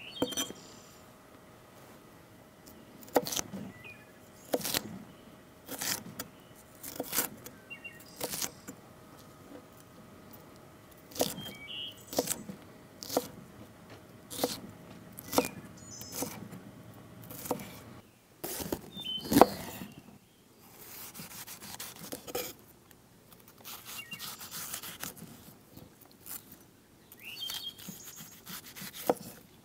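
Kitchen prep: irregular sharp knocks and scrapes of utensils against a board or pot, roughly one a second, with a faint steady hum beneath for the first two-thirds that stops partway through.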